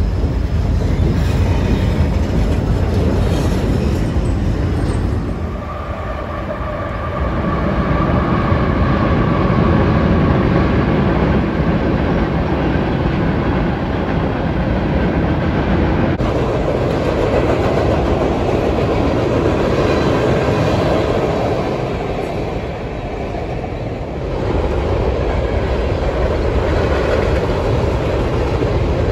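Freight trains rolling across railroad bridges: a steady rumble and clatter of steel wheels on the rails. The sound changes abruptly a few times.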